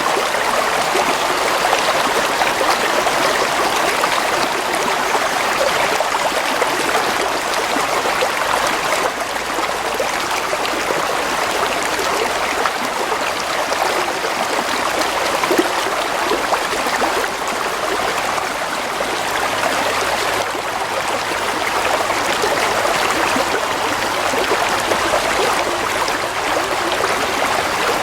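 Gently flowing stream water, a steady, even rush and trickle.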